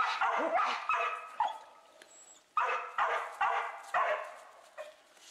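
Australian cattle dogs barking excitedly in quick, short barks about two a second, with a lull of about a second near the middle before another run of barks.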